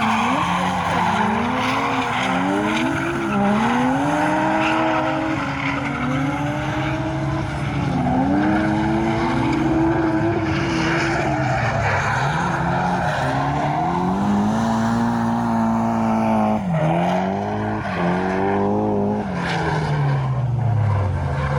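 Drift car's engine revving hard, its note swinging up and down every second or two as the throttle is worked, then falling away in a long drop near the end.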